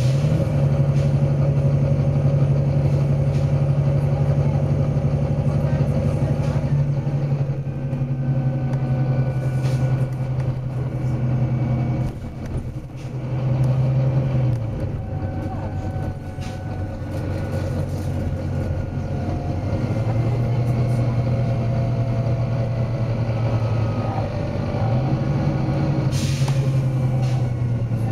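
Volvo B9TL double-decker bus running, its engine note stepping up and down as it pulls and eases off, with a lull about twelve seconds in. Short air hisses from the bus's air system, the loudest near the end.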